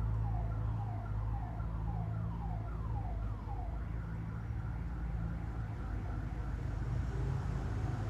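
Emergency-vehicle siren in a fast yelp pattern, a run of falling wails about two a second, which settles into a faint steady tone about halfway through. A steady low hum, louder than the siren, lies underneath.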